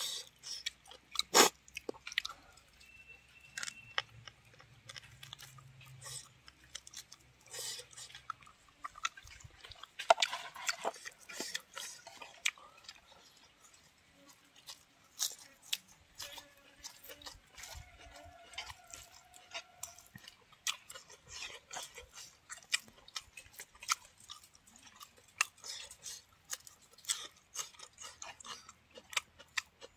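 Close-up chewing of a mouthful of buffalo meat and rice, with many short wet clicks and smacks of the mouth.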